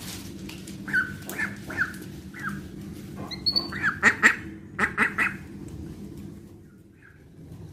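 Young duck calling in short, sharp calls: four spaced calls, then a faster, louder cluster of about six more a little past the middle.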